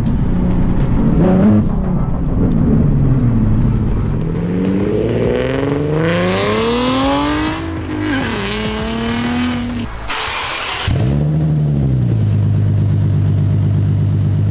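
Nissan 370Z's V6 through a Tomei Expreme Ti titanium single-exit catback exhaust, revving up through the range with the note climbing and dropping at each shift, a quick blip about ten seconds in, then settling to a steady idle. Loud, with a higher note at high revs.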